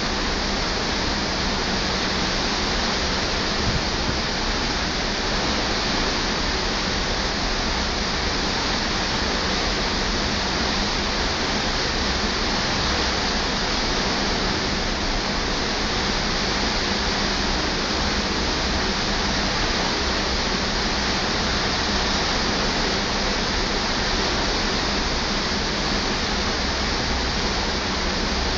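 Steady rushing of wind and sea heard from a cruise ship's balcony, an even hiss with no breaks, over a low, unsteady rumble of wind buffeting the microphone.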